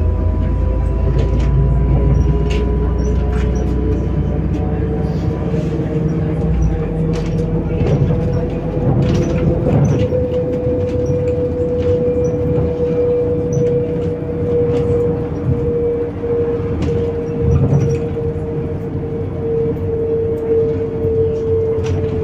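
Inside a MAZ-105 articulated city bus on the move: the engine and drivetrain run with a steady whine that rises a little about ten seconds in and then slowly falls. Occasional short clicks and rattles sound through it.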